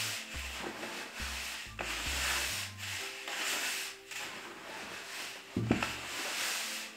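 Dry soybean meal and flour being stirred together in a bucket: repeated, uneven scraping swishes as the powdery mix is worked over.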